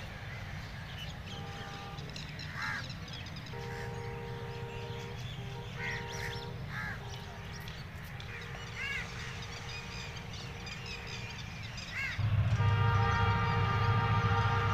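Diesel locomotive horn sounding faintly several times as the train approaches, over crows cawing; a little past halfway through the last quarter the horn blows a long, loud two-note blast over the rumble of the engine.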